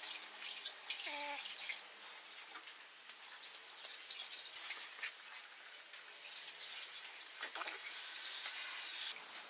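Soft wet smearing and scraping as wood glue is brushed along the grooved joints between wooden boards.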